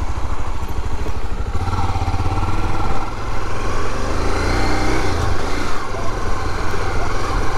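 Motorcycle engine running as the bike is ridden, a steady note that rises and falls a little.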